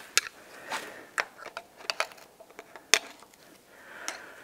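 Irregular light metallic clicks and taps of a screwdriver working against the threaded bearing retaining ring on a Landcruiser 60 Series rear wheel hub, while the ring's locking-pin holes are being lined up.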